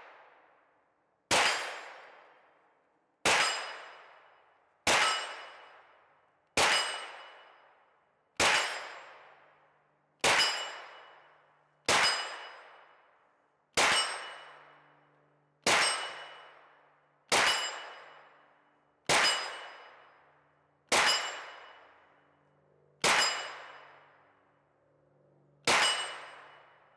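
A sharp metallic clang that rings out and fades over about a second, repeated about fourteen times at a steady pace of one every two seconds or so.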